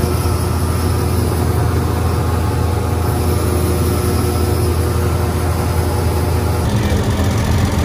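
Combine harvester running steadily during wheat harvest, a constant heavy engine and machinery hum; its tone shifts slightly near the end.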